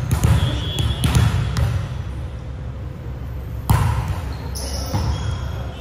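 A volleyball struck hard with a sharp slap about three and a half seconds in, echoing in the gymnasium, with a few lighter knocks before it and short high squeaks after it.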